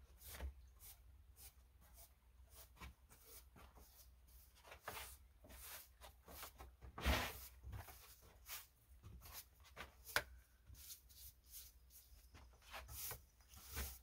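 Broom sweeping snow off wooden porch boards: a run of irregular brushing strokes, with one sharper knock about ten seconds in.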